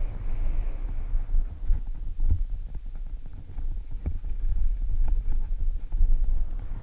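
Wind buffeting a helmet camera's microphone on a fast mountain-bike descent, a heavy low rumble that rises and falls, over the noise of tyres rolling on dry dirt. A few sharp clicks come as the bike rattles over bumps.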